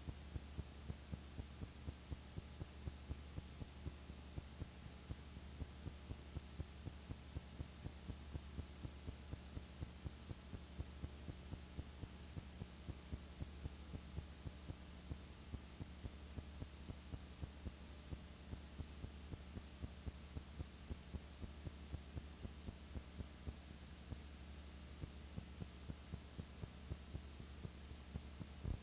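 Faint steady low electrical hum with a regular tick about two to three times a second, the background noise of a silent home-movie film transfer.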